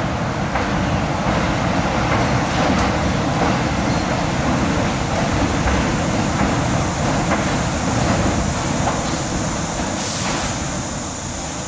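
New York City subway train of R62A cars pulling out along the platform, its motors and wheels running steadily. A short hiss of air sounds about ten seconds in.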